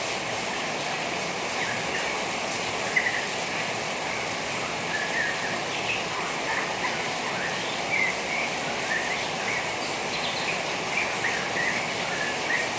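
A juvenile white-rumped shama twittering in short, soft chirps, about one a second, over a steady hiss of rain.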